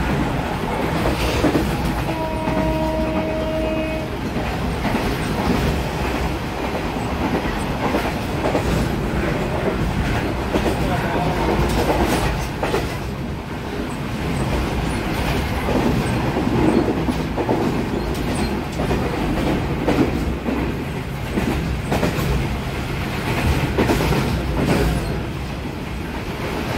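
Train running along the track, heard from the front of the train: a steady rumble with wheels clicking over the rail joints. A horn with a steady tone sounds for about two seconds shortly after the start.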